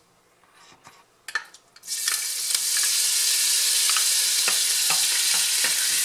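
Small pieces of ham fat hitting a hot stainless-steel sauté pan and starting to sizzle about two seconds in, then sizzling steadily as the fat renders. A wooden spatula stirs them and knocks against the pan now and then.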